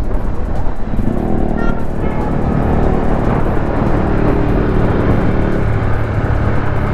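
Motorcycle running along at a steady speed, its engine note holding steady from about a second in, under background music.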